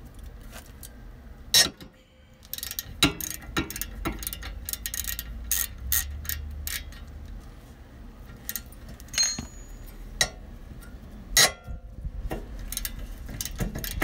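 Hand ratchet clicking in short irregular runs as a socket is worked on a brake caliper bracket bolt to loosen it, with two louder sharp knocks, one early and one late.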